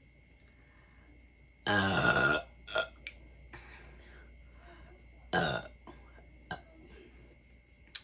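A woman burping after drinking Sprite: a long, loud burp about two seconds in, a short one just after it, and another loud burp about three seconds later.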